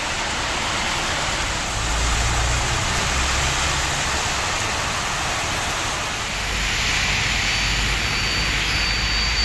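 Heavy rain falling steadily, a continuous hiss, with the low rumble of traffic on the wet road swelling about two seconds in and again past the middle.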